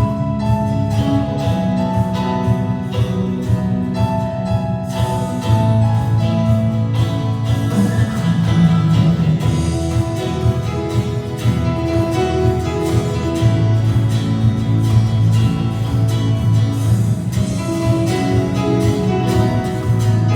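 Worship band playing a song through the church sound system at a sound-check rehearsal, with guitar, a steady beat and a strong bass line.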